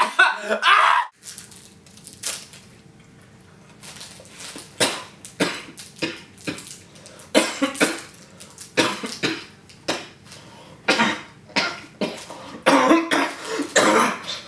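A man coughing over and over, deliberately, as a mock ab exercise. The coughs come in short fits of a few at a time with pauses between, getting busier toward the end.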